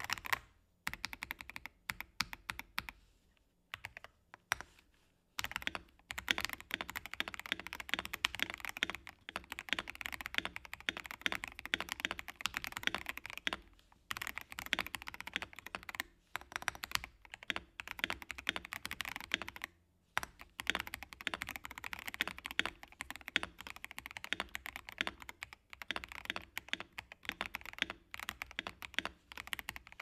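Steady, fast typing on a Vortex PC66 mechanical keyboard with Dareu Blue switches and MT3 Black Panther keycaps: dense runs of key clacks, broken by a few short pauses.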